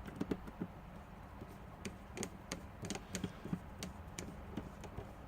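Small, irregular clicks and ticks of a precision screwdriver turning a tiny screw into a laptop screen's mounting lug.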